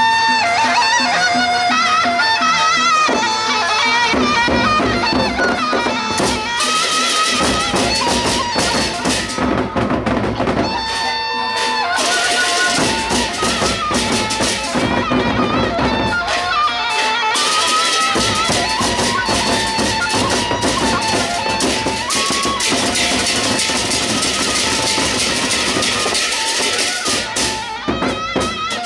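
Gendang beleq ensemble playing: large drums and percussion under a reedy wind-instrument melody, continuous throughout.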